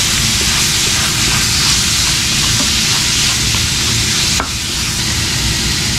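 Minced meat sizzling in a frying pan as a spatula stirs and breaks it up, a steady bright hiss of frying. A single sharp knock about four and a half seconds in.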